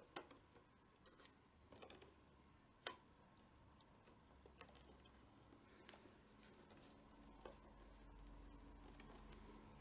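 Near silence broken by a few light, scattered clicks and taps from handling the leather tabla strap and drum while lacing, the sharpest about three seconds in.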